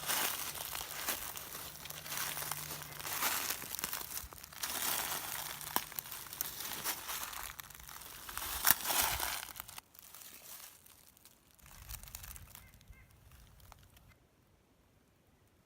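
Footsteps crunching through dry fallen leaves, irregular and crackly, dying down to faint rustles about ten seconds in and near silence near the end.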